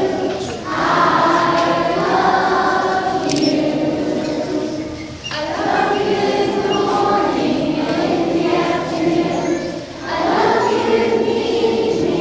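A choir of many voices singing together, holding long notes in three phrases with short breaks between them.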